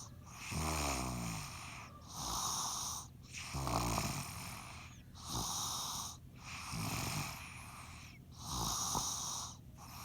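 Loud snoring: a low rattling snore alternating with hissing breaths, in a steady, even rhythm of breath after breath.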